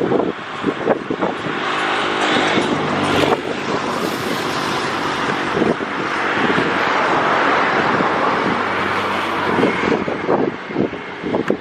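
Wind buffeting the microphone while a motor vehicle passes close by: its engine and road noise swell through the middle and fade near the end.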